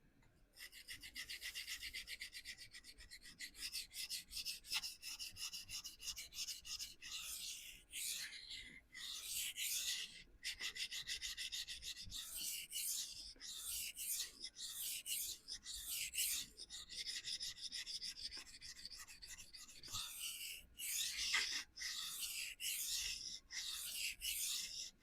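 A CPM-S30V steel knife blade being stroked freehand across a vitrified diamond sharpening stone: a rasping scrape, fast and nearly continuous for the first several seconds, then separate strokes about once a second. The steel is being ground at the heel of the edge to raise a burr there.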